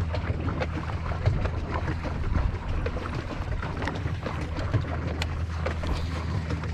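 Small waves lapping and knocking against a paddle boat's hull under many small, irregular clicks, over a steady low hum, with light wind on the microphone.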